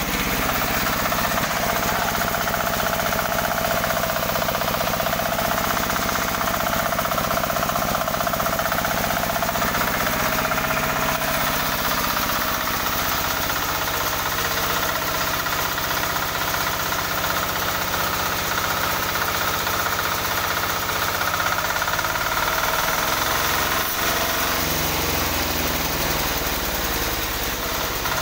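18 hp diesel engine running steadily under test as it drives a sawmill, with a whine from the spinning machinery that drifts in pitch now and then.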